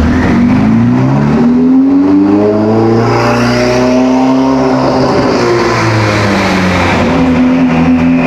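Car engine revving: its note climbs over about three seconds, holds briefly, then drops back to a steady lower note near the end.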